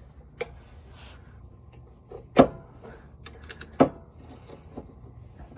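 Scattered clicks and knocks of metal parts and hand tools as the servo is worked out of a 4L60E transmission in the car, with two louder knocks a second and a half apart near the middle.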